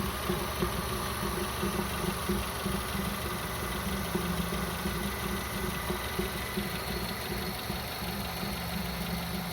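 Nissan PC24 Serena engine idling steadily, heard in the engine bay, where it makes an abnormal noise.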